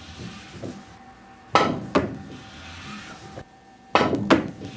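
Two fast pool shots, about 1.5 s and 4 s in, each a sharp knock of a very soft Ultraskin tip on a solid maple shaft striking the cue ball. Each is followed about half a second later by a second knock as the ball hits the near cushion.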